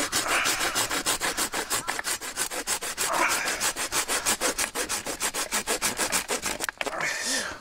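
Hand pruning saw cutting through a fallen wooden branch with rapid, even back-and-forth strokes, stopping about seven seconds in.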